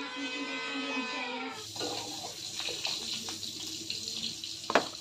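Background music, then, about a second and a half in, a tap running water into a plastic tub, with a few light knocks and one sharp clunk near the end.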